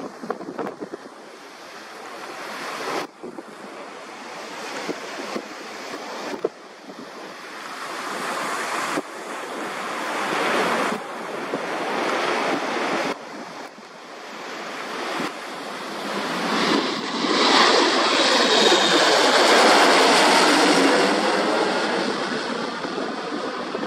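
Twin GE CF34-8E turbofan engines of an Embraer E175 at takeoff power: a steady rushing jet noise that swells as the airliner accelerates and climbs, breaking off and resuming several times. It is loudest near the end as the jet passes overhead, with a sweeping, phasing whoosh.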